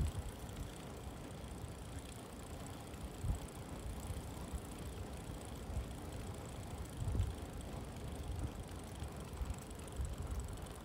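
Riding noise from a Brompton folding bicycle on a wet country road: a steady hiss of tyres and air, with wind rumbling on the microphone that gusts up about three seconds in and again about seven seconds in.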